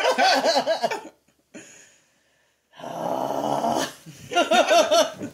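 Wordless, tense vocal sounds from the onlookers: a pulsing, wavering voice, like strained laughter or whimpering, then a long breathy exhale, then more of the pulsing voice near the end.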